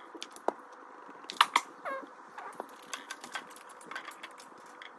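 Plastic building bricks clicking and tapping together as pieces are pressed onto a small model spaceship: a string of sharp clicks, the loudest two about a second and a half in.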